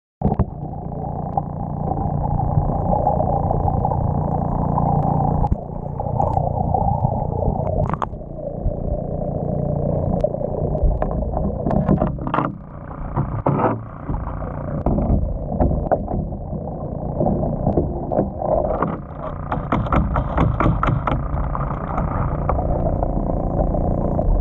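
Underwater sound: a steady, muffled low rumble, with scattered sharp clicks and scrapes as a diver's hands handle a zinc anode and its mounting stud on a boat's trim tab. A rapid run of clicks comes about three quarters of the way through.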